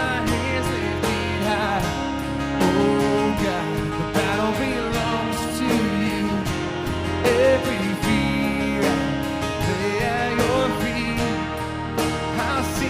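Worship band playing a song live, with guitar over a steady beat and bass.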